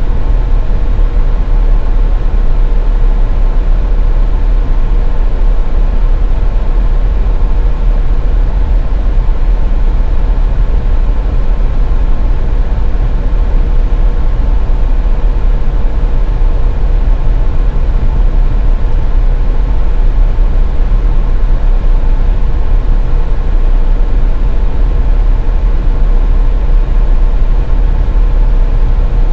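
Steady low rumble of a car driving on a highway, road and engine noise with a faint steady hum above it, unchanging throughout.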